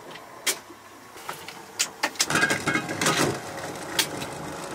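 Haines Hunter 680 boat under way on light chop: sharp knocks from the hull slapping small waves over a steady wash of water and wind. A louder rush with a low rumble comes in a little past halfway.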